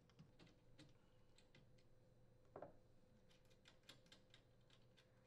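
Near silence, with faint scattered ticks and one soft knock about two and a half seconds in.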